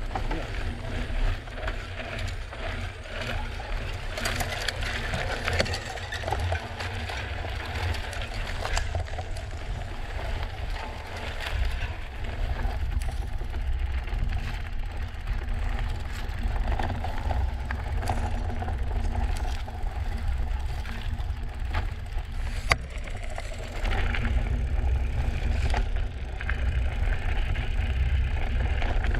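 Drop-bar mountain bike riding a rocky dirt trail: tyres crunching over gravel and rock, with the bike rattling and clicking over the bumps, over a steady low rumble. One sharp click stands out about two-thirds of the way through.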